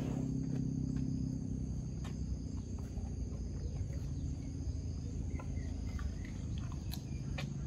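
Insects chirring steadily, over a low steady hum that fades after the first second or so and returns near the end. Faint scattered clicks run through it.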